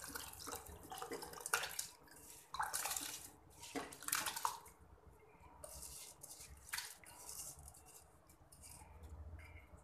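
Soaked rice and its soaking water tipped into a pressure cooker of spiced vegetables, pouring and splashing in a few short bursts, then dripping.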